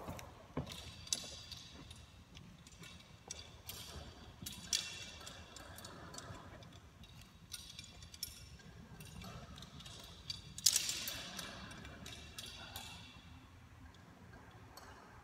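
Irregular light ticks and clinks from the metal rigging of swinging aerial straps, with a louder clink about ten and a half seconds in.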